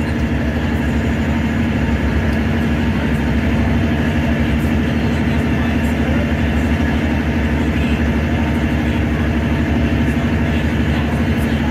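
A passenger ferry's engines running steadily underway: a continuous low drone with a hum, heard from the open deck, under the chatter of passengers.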